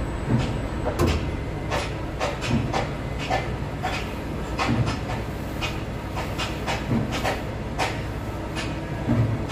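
Tower crane running under load, heard from its cab: a steady low machine hum with frequent irregular clicks and knocks, one to three a second.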